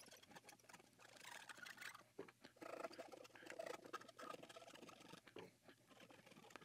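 Cotton swab scrubbing over solder joints on the underside of a circuit board: faint, irregular scratchy rubbing with small ticks.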